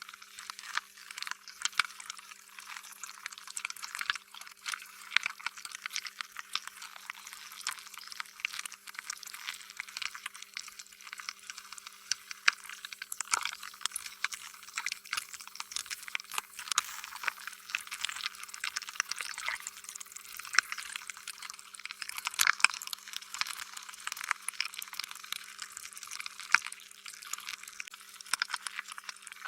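Slime being squished and worked by hand: a continuous stream of irregular wet, sticky clicks and squelches.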